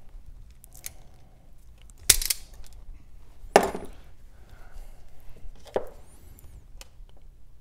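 A few sharp knocks and clicks of hand tools and a wire terminal being handled on a wooden workbench, the two loudest about two and three and a half seconds in.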